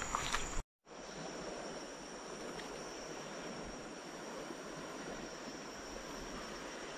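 Steady rush of a fast-flowing river, with a brief dropout to silence under a second in.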